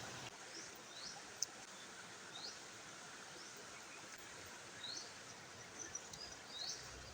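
A small bird repeats a short rising chirp every second or two over a steady outdoor hiss, with one sharp click about a second and a half in.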